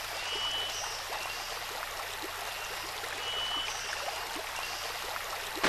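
Shallow forest stream running over stones, a steady rush of water, with two faint, brief high whistling notes about half a second and three seconds in.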